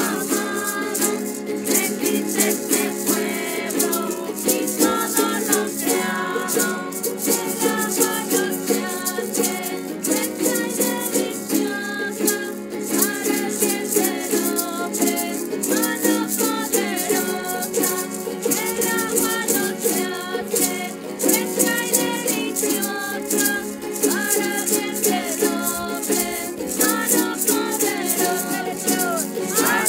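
Voices singing a Spanish-language praise song to strummed mandolin and small guitars, with a rattle shaken steadily in time.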